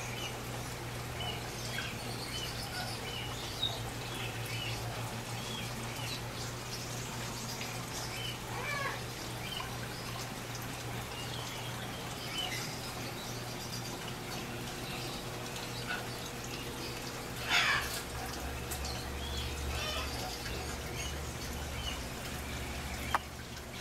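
Pet-shop room sound: a steady low hum and water noise from running fish-tank equipment, with many short high animal chirps and one louder call about 17 seconds in.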